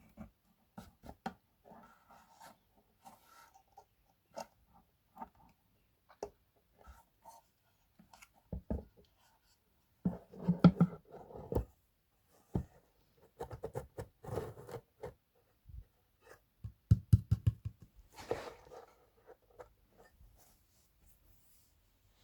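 Scattered clicks, taps and knocks from hands handling subwoofer parts, with louder clusters of rapid knocking about halfway through and again near three-quarters of the way.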